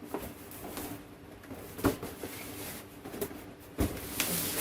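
Cardboard shipping box being handled and opened: a couple of sharp knocks, then scraping and rustling of cardboard near the end.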